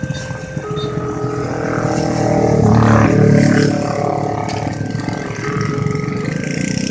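Level-crossing warning siren from a Multec TC siren module on a horn speaker, sounding its two-tone alarm and switching pitch about every two-thirds of a second. Underneath is a heavy engine rumble from a passing train, loudest about three seconds in.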